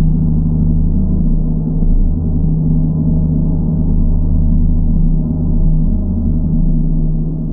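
Large gong sounding in a deep, sustained drone that swells and ebbs in loudness.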